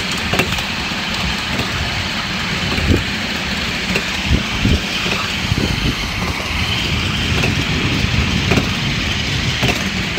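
Steady rumble and clatter of a ride-on miniature railway train rolling along the track, with irregular short knocks from the wheels on the rails.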